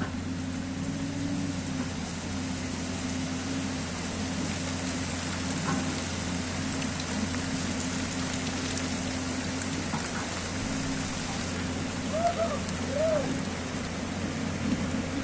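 Steady rain falling, with an excavator's engine running at a constant pitch beneath it.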